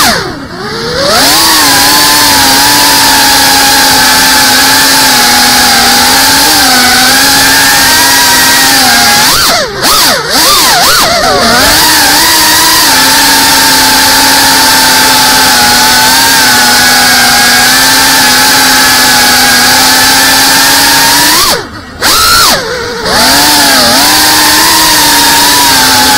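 GEPRC Cinelog 35 ducted cinewhoop FPV drone's brushless motors and propellers whining loudly, recorded by the onboard camera. The whine mostly holds one pitch, and three times (just after the start, about ten seconds in, and again about twenty-two seconds in) the throttle is cut. The pitch drops and the sound dips, then climbs back as the throttle comes up.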